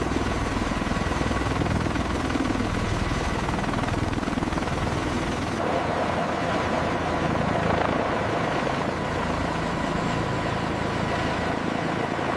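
V-22 Osprey tiltrotor hovering: the dense, steady noise of its rotors and turboshaft engines, with a thin steady whine. About five and a half seconds in the sound shifts, the low rumble falling away and the midrange growing louder.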